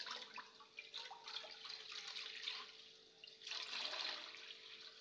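Water poured from a plastic jug into an empty non-stick kadai, splashing against the metal pan; the pour swells again about three and a half seconds in.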